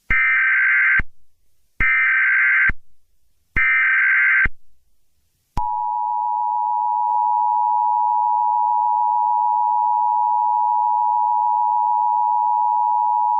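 Emergency Alert System tones: three short bursts of the SAME digital header, each about a second long and evenly spaced. About five and a half seconds in, the long steady two-tone EAS attention signal starts and holds.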